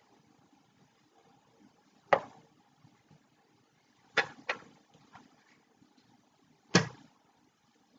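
Sharp knocks of a hard plastic stand base being handled and set down on a tabletop. There are four: one about two seconds in, two close together around four seconds, and the loudest near the end.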